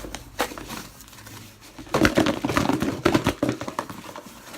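Slime being squeezed and worked by hand: irregular sticky crackles and squishes, busiest and loudest about two seconds in.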